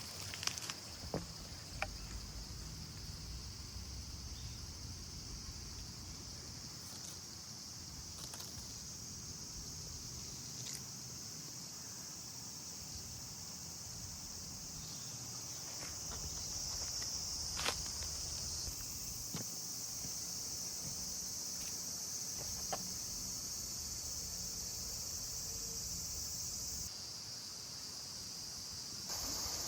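A steady, high-pitched chorus of insects calling, with a few sharp clicks or taps scattered through it.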